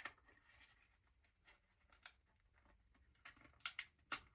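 Faint, sharp plastic clicks and taps from handling a Kyosho Mini-Z MR-04 EVO2 RC car chassis and its body: one at the start, one about two seconds in, and a quick cluster near the end.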